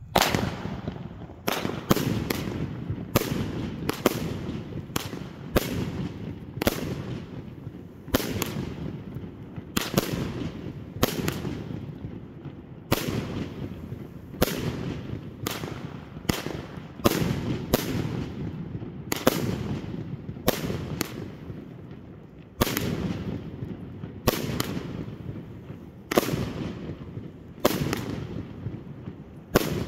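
An 88-shot Folkor "Lucks Out" consumer firework cake firing: a sharp report about once a second, each one trailing off over the following second, in a steady run of about thirty shots.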